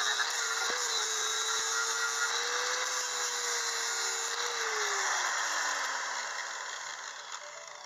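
Bosch angle grinder with an abrasive disc grinding surface rust off the steel inner wing panel, its motor whine steady under a hiss of grinding. About four and a half seconds in it is switched off, and the whine falls in pitch and fades as the disc spins down.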